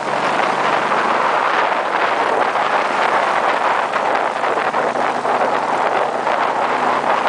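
Open off-road buggy driving along a dirt track: its engine running steadily, with a loud hiss of wind on the microphone and road noise.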